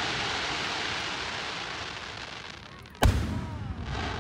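Aerial firework shells bursting: a hissing spray of sound that slowly fades, then one sharp, loud bang about three seconds in with a low echo trailing after it.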